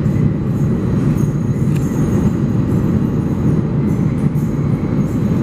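New York City subway train running into the station fast, a loud steady rumble of wheels on rails.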